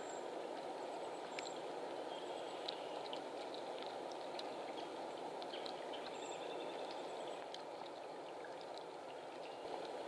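Steady rushing woodland ambience during a snowfall, with scattered light ticks. A few brief, very high, thin bird notes sound near the start and again about six seconds in.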